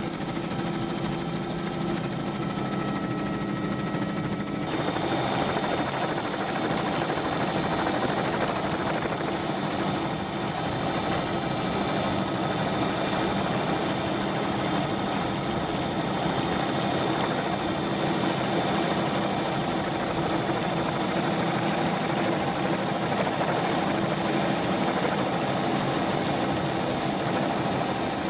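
Steady helicopter engine and rotor noise, heard from aboard the aircraft. The sound shifts a little about five seconds in and then holds steady.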